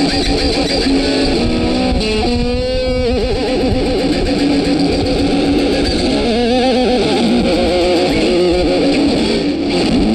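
Music led by electric guitar, with bent, wavering notes.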